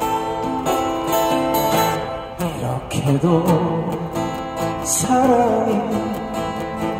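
Two acoustic guitars strumming chords together, with a man singing the melody from about two and a half seconds in.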